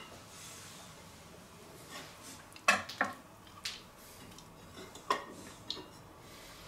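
A few scattered light clinks of a metal cake server against porcelain plates as a slice of cake is slid onto a plate and the plate is handled.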